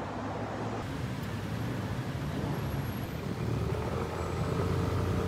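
Busy city road traffic: a steady low rumble of car engines and tyres that grows a little louder near the end, when a faint steady engine hum joins in.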